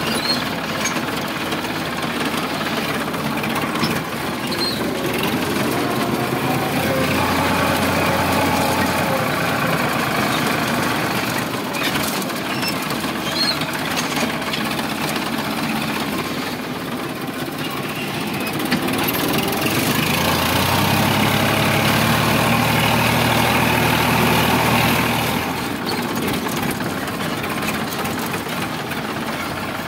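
Sonalika DI 745 tractor's three-cylinder diesel engine running while the tractor drives. It grows louder twice, for a few seconds about 7 s in and again for several seconds from about 19 s, then settles back.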